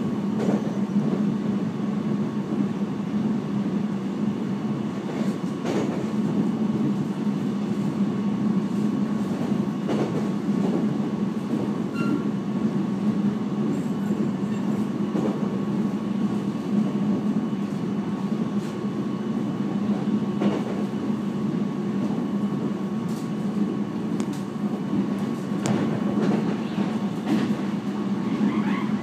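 Steady running noise heard from inside a moving Taiwan Railways passenger train: a constant low hum with a faint high steady tone above it, and scattered single clicks from the wheels.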